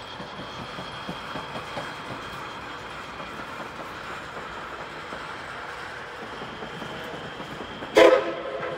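Steam locomotive C58 363 running along the track with steady train noise and rail clatter, then near the end a sudden, loud, short blast of its steam whistle.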